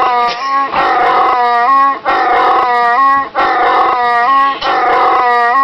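Chewbacca roar sound effect played back over and over: the same rough, warbling growl repeats about every second and a quarter, four or five times.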